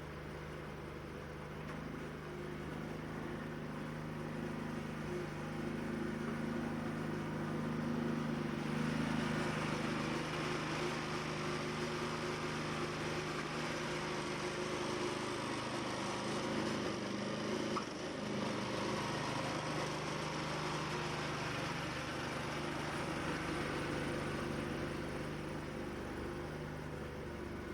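Steady machine hum with a few held low tones, under a rushing noise that swells about eight seconds in and dips briefly about two-thirds of the way through.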